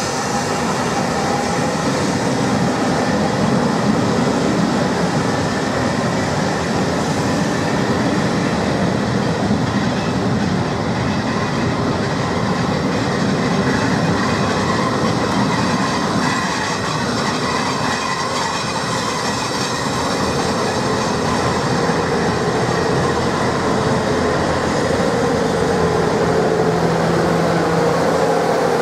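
Train of Cravens passenger coaches rolling past close by: a steady rumble and clatter of wheels on the rails.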